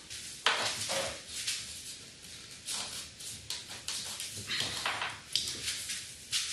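Irregular rustling and a few sharp knocks as hands press and slide along a wooden strip set in sealant on top of an aluminium conservatory window frame.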